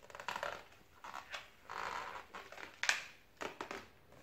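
Latex twisting balloons rubbing against each other and the hands as an inflated balloon figure is handled, in irregular scraping bursts, with one sharp click about three seconds in.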